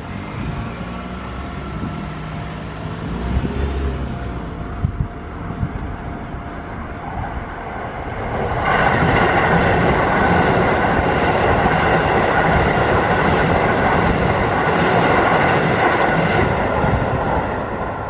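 Keio Line electric train passing a level crossing: a rumble builds as it approaches, then about halfway through the full rush of wheels on rail and motor noise starts suddenly, holds for several seconds and fades away near the end. Steady warning tones, fitting the crossing's warning bell, are heard faintly in the first few seconds.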